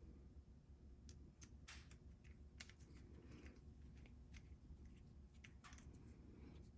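Faint, irregular clicks and light taps of small metal ratchet parts being handled and fitted during reassembly, about nine in all, over a low steady hum.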